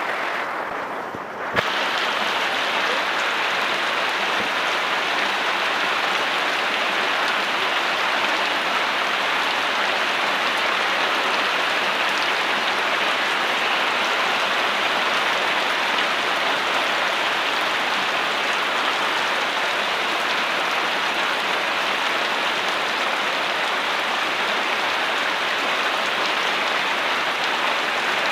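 Steady, heavy rain falling: a dense, even hiss. It is duller for the first second and a half, broken by a sharp click, then holds steady.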